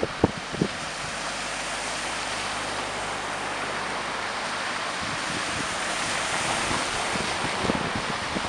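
Cars driving slowly through shallow floodwater on a road, their tyres pushing and spraying water in a steady rushing wash that grows louder near the end as a car comes closer. Two brief knocks just after the start.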